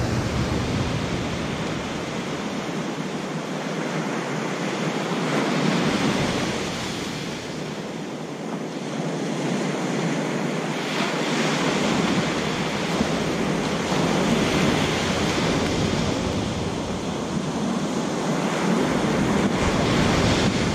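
Ocean surf breaking and washing up a sandy beach, swelling and easing with each wave, with wind buffeting the microphone.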